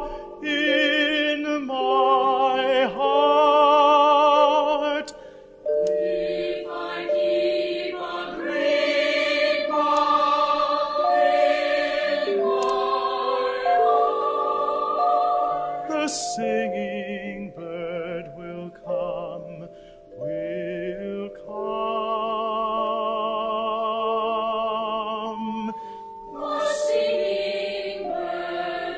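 A group of voices singing a slow song, with long held notes and vibrato and short breaks between phrases.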